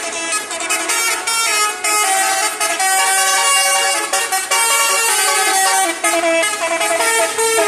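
Basuri multi-tone vehicle horn playing a continuous tune, its notes changing in quick steps.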